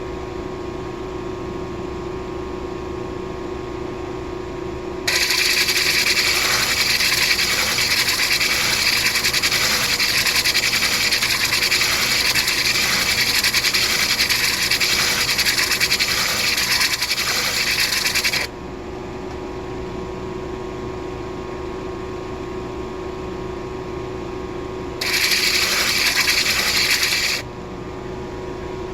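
Stone being sanded on a motor-driven grinding wheel: the wheel hums steadily, and each time the stone is pressed against it a loud gritty hiss sets in. The first contact lasts about thirteen seconds and stops suddenly; a second, shorter one of about two seconds comes near the end.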